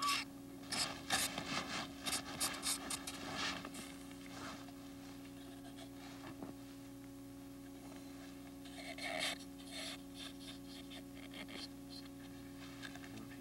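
Snow being scraped with a hand tool, a quick run of short rasping strokes for the first few seconds, then another run after about nine seconds, typical of cutting samples from a snow-pit wall.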